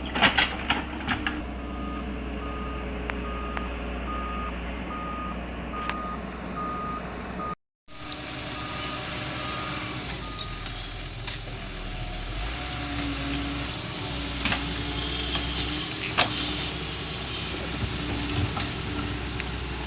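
Doosan 140 wheeled excavator's diesel engine running steadily while its travel alarm beeps in a regular high tone, roughly once every 0.8 seconds, stopping about halfway through. A few sharp knocks at the start and later on, with a brief cut in the sound about a third of the way in.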